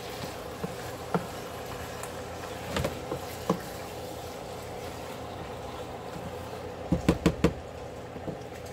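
Chicken thighs frying in a nonstick pan while a silicone spatula stirs and turns them: a steady sizzle with a few light knocks of the spatula against the pan, then a quick run of four sharp knocks near the end.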